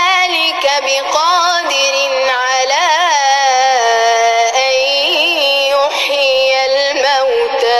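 Qur'an recitation: a single voice chanting in a melodic tajweed style, drawing out long ornamented notes that glide and waver in pitch, with one note held steady a little before halfway.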